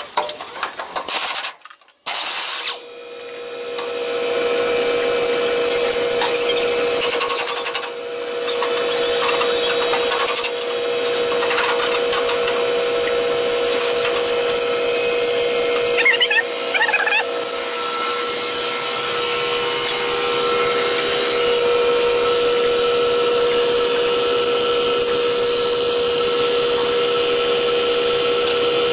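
Air compressor motor starting about two seconds in and then running steadily with a constant hum, after a few short clanks from work on the truck's bumper mounts. A couple of brief squeaks come partway through.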